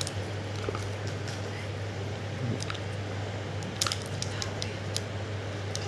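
Small clicks and light handling noise from a smartwatch and its strap being worked by hand, most of the clicks coming about four seconds in, over a steady low hum.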